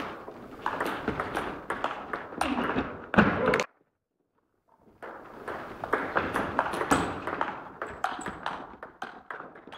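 Table tennis rally in a large hall: quick sharp clicks of the celluloid ball off the bats and the table, with some duller thuds. The sound drops out completely for about a second near the middle.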